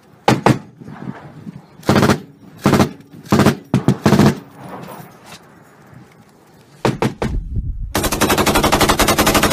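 Gunfire: several separate loud shots spaced about half a second to a second apart, then, near the end, a long unbroken burst of rapid automatic rifle fire.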